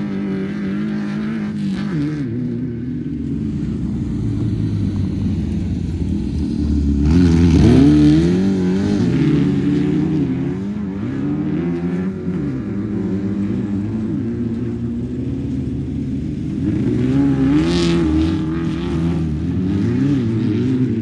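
Class 11 off-road race cars, stock Volkswagen Beetles with air-cooled flat-four engines, running and revving, their pitch rising and falling. It gets loudest as a car comes close about a third of the way in, and again near the end.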